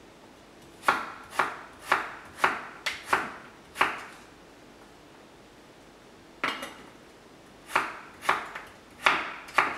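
Kitchen knife chopping daikon radish on a wooden cutting board: a run of seven quick cuts, about two a second, a pause of about two seconds, then six more cuts.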